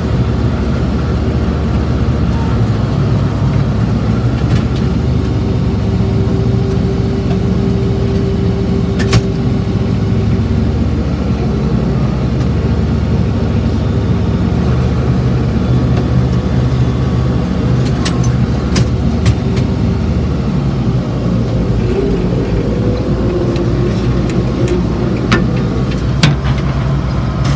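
IH 1086 tractor's six-cylinder turbo diesel running steadily under load, heard from inside the cab. A few sharp clicks and knocks come through, most of them in the second half.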